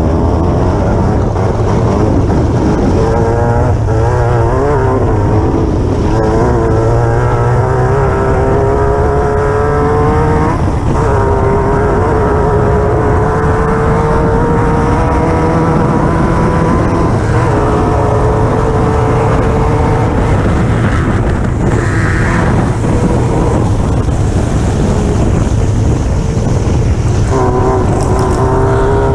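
Class 9 off-road race buggy's engine running hard under load. Its pitch climbs slowly and drops back several times as the driver shifts or lifts, over a steady rush of noise.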